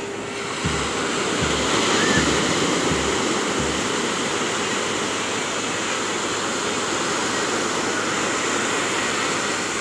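Surf breaking and washing onto the beach, a steady rushing, with wind on the microphone and a few short low thumps in the first four seconds.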